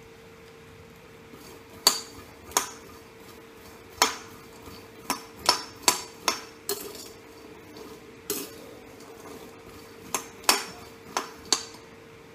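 Steel spoon scraping and knocking against a black wok while stirring dry-roasting peanuts, about a dozen sharp, irregular metallic clacks, several close together in the middle.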